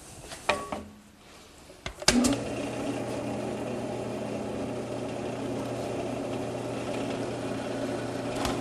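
A few clicks from handling the drill press, then its motor switches on about two seconds in and runs with a steady hum while a bit drills screw holes through 1/8-inch aluminum angle.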